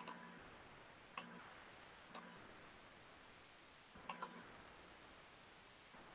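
A few sharp computer-mouse clicks over near silence: three single clicks about a second apart, then a quick double click about four seconds in.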